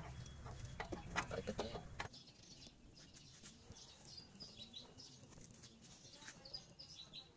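A few sharp metallic clinks and knocks from a hand tool working on the tie rod end under the truck. They stop about two seconds in, leaving faint bird chirps.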